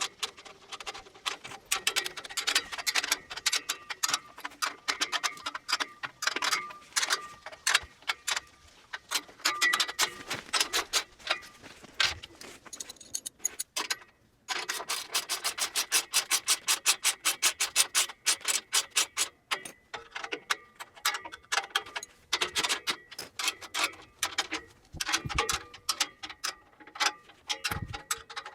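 Socket ratchet clicking in fast runs as nuts on a metal rack are tightened with 14 mm and 13 mm sockets, with short breaks between strokes and a brief pause about halfway through.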